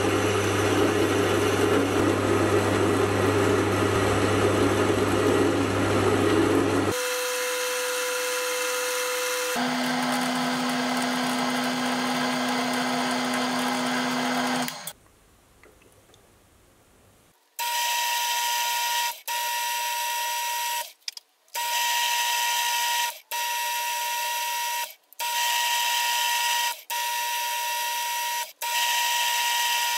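Metal lathe running while cutting a worm screw thread with a single-point cutter, a steady machine hum and whine with cutting noise. The pitch of the hum changes twice in the first half. After a couple of seconds of near silence it comes back as a run of short stretches, each under two seconds with brief gaps between them.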